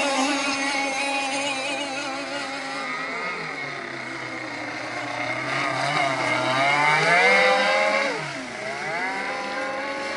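BZM two-stroke petrol engine of a radio-controlled race boat running at speed, its pitch rising and falling as the throttle changes. It is loudest about seven seconds in, drops sharply just after eight seconds and then climbs again.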